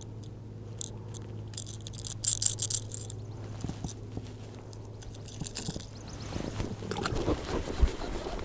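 Close handling noise from unhooking a small fish and fiddling with the lure: crackling, scraping and small clicks, busiest about two seconds in, over a steady low hum that stops about seven seconds in.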